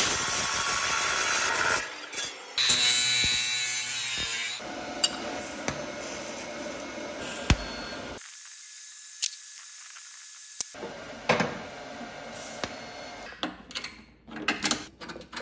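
Abrasive cut-off saw cutting square steel tube, loud for the first two seconds, then stopping. Later comes a steady hiss of TIG welding for a couple of seconds. Near the end there are small metal clicks and knocks as a seat-belt mount is bolted on by hand.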